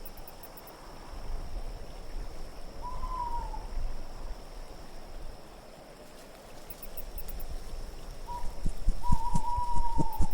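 An owl hooting twice over low, gusting wind: one wavering hoot about three seconds in, then a short note and a longer quavering hoot near the end. Scattered soft knocks come in near the end.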